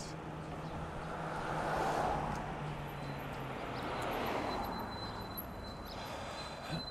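Road traffic passing on a street, its noise swelling twice, about two seconds in and again about four seconds in. A faint, steady high whine joins in the second half.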